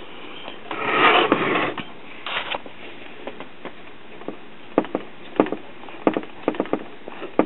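The tuning mechanism of a 1937 GE F63 tube radio chassis being worked by hand as its variable tuning capacitor turns. There is a brief rubbing about a second in, then a run of light, irregular clicks in the second half.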